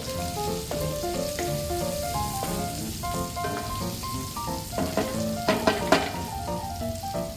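Sliced red onion, garlic and ginger sizzling in a steel wok as they are stirred with a wooden spatula, with a few sharp knocks and scrapes of the spatula against the wok about five to six seconds in. A melodic background music track plays over it throughout.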